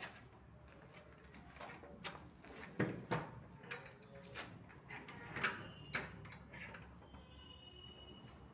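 A padlock and sliding tower bolt on a door being handled: a run of metal clicks and knocks, loudest about three seconds in, then a brief thin squeak near the end.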